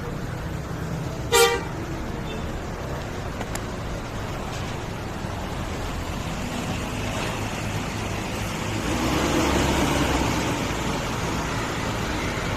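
A tour bus horn gives one short, loud toot about a second and a half in, over the steady low rumble of the bus's engine. The engine and road noise grow louder around nine seconds in as the bus moves off.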